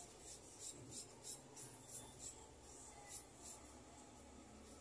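Faint, rhythmic scraping strokes of a small hand tool on metal at a jeweller's bench, about three a second, dying away after a few seconds.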